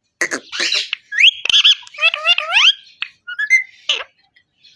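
Indian ringneck parakeet calling: a few harsh screechy calls, then a quick run of clear rising whistles, and one more harsh call near the end.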